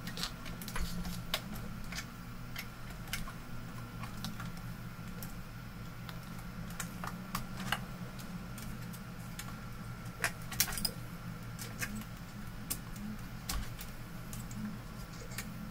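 Hands working a small cable connector loose and handling the monitor's plastic and metal internals: scattered, irregular small clicks and light rattles, with a cluster of sharper clicks about ten seconds in, over a steady low hum.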